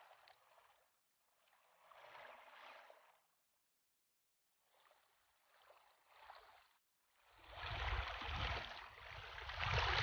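Wind rushing over the microphone, cutting out to silence twice, then buffeting loudly with a deep, uneven rumble from about seven seconds in.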